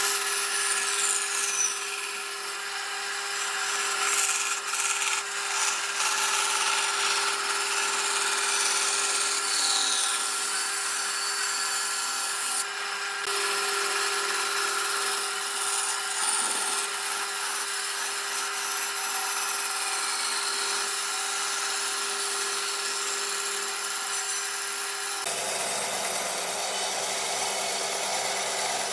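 Bandsaw running, its blade cutting a curve through a thick softwood block, a steady hum under the rasp of the cut.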